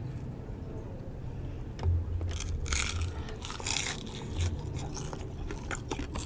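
Biting and chewing crispy deep-fried pork belly (bagnet), with crunching in bursts starting about two seconds in.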